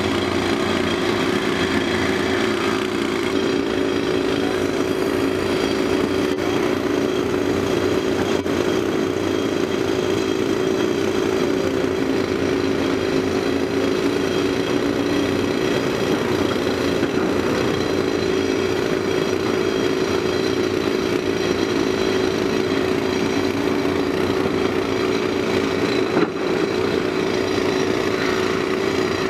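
Caterpillar 385B L hydraulic excavator's diesel engine running steadily as the machine works gravel, with a single light knock near the end.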